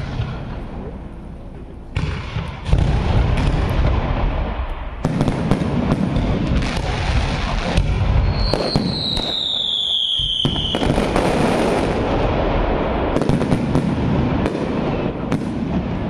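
Fireworks display going off: a dense run of bangs and crackling over a continuous rumble. A little past halfway, a whistling firework adds a long whistle that falls in pitch.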